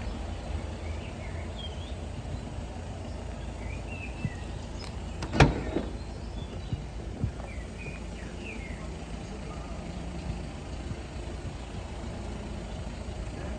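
Steady low rumble with a few short high chirps, and one sharp, loud thump about five and a half seconds in, followed by a smaller knock a couple of seconds later.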